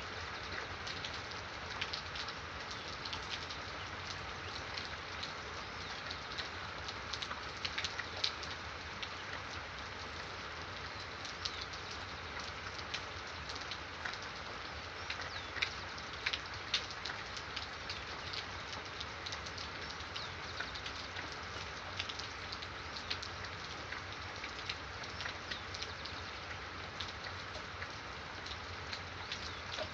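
Steady rainfall, an even hiss with many distinct drops striking close by, and occasional bird calls over it.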